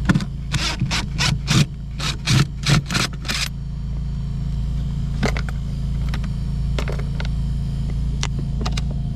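About a dozen short scraping strokes in quick succession as screws are worked out of a camper refrigerator's cover, stopping after about three and a half seconds. A few faint clicks follow, over a steady low hum.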